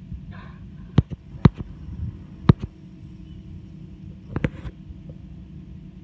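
Steady low wind rumble on the microphone, broken by sharp clicks: a pair about one second in, another about a second and a half in, a pair at two and a half seconds and a pair near four and a half seconds, with two short soft puffs of noise in between.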